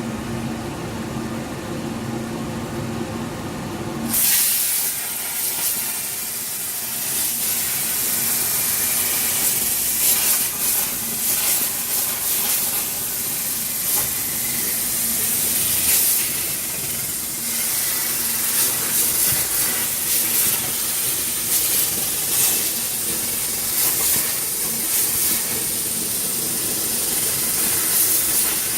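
CNC plasma cutter on 2 mm sheet: a steady machine hum, then about four seconds in the arc strikes and a loud hiss with a high whine runs on as the torch cuts.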